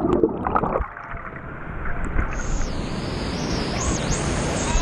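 Rushing canyon water: a steady, fairly loud rush with a low rumble, its upper hiss shifting about two seconds in.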